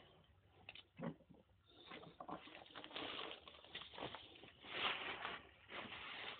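Faint, irregular rustling and shuffling of someone moving through a cluttered room, with a soft thump about a second in.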